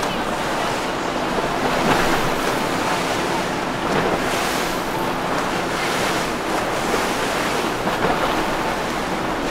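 Waves and rushing water with wind buffeting the microphone, over a low steady hum of boat engines.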